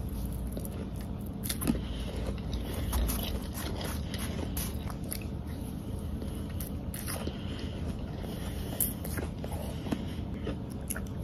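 Biting and chewing mouthfuls of powdery ice: irregular sharp, crisp crunches, over a steady low hum.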